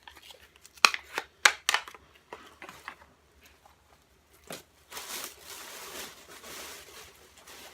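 Handling of a plastic-and-card package of Sharpie markers: a few sharp clicks and taps in the first two seconds, then a few seconds of steady crinkling and rustling from about five seconds in.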